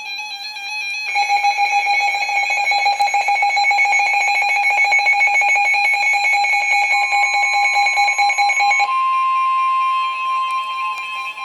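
Emergency Alert System alert tones: a loud electronic tone that pulses rapidly for about eight seconds, then changes near the end to a single steady tone.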